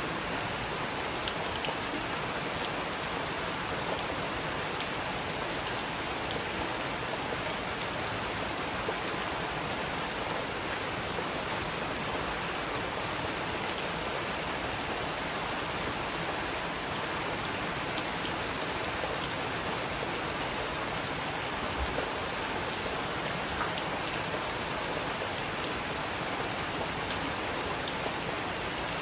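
Steady rain, an even hiss with scattered small ticks.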